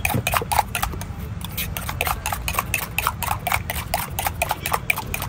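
Metal spoon beating eggs in a small steel bowl, clinking rapidly against the sides at about six strokes a second.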